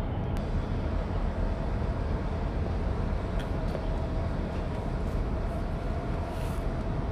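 Steady low outdoor rumble with a faint steady hum over it and a few light clicks.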